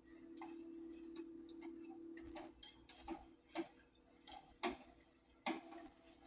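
A utensil clicking and knocking against a pot while a sauce is stirred, in irregular taps with the loudest ones near the end, over a steady low hum.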